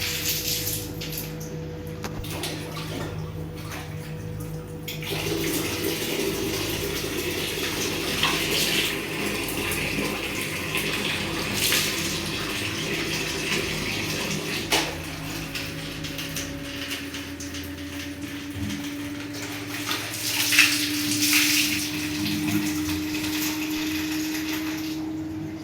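Water running from a tap and splashing, with a few sharp knocks.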